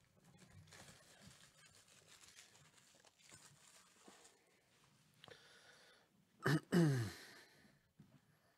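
Faint rustling of a sealed trading-card box being handled. About six and a half seconds in, a person makes a short vocal sound in two parts, falling in pitch.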